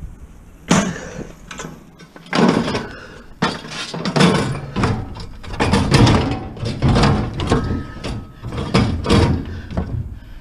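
A string of irregular loud bangs and clanks, more than a dozen, as heavy scrap and gear are handled and set down in the back of a work truck while a hot water tank is loaded and secured.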